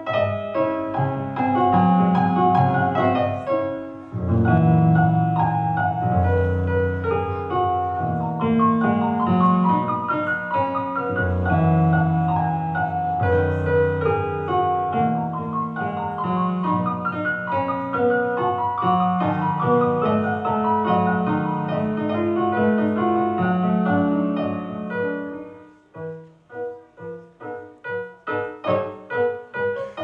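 Piano music playing a flowing melody over held low notes; about four seconds from the end it changes to short, detached notes.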